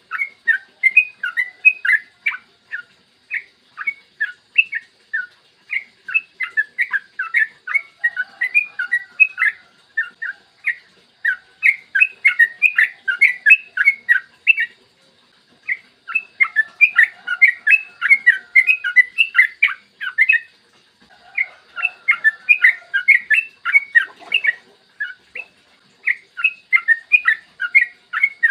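Yellow-vented bulbul (trucukan) singing a fast, rolling run of chattering whistled notes. The song comes in long phrases of several seconds, broken by short pauses.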